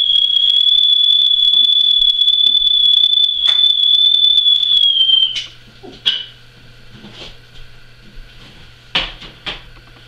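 A loud, steady, high-pitched whistling tone that holds, dips slightly in pitch about five seconds in and stops, followed by a few faint clicks and taps.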